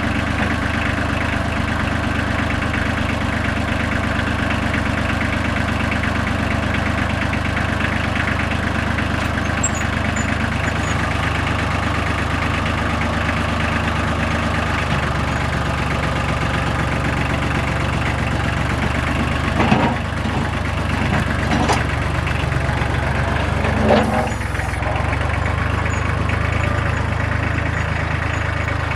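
Farm tractor engine running steadily while it moves a heavy log, with a few short clunks about two-thirds of the way through.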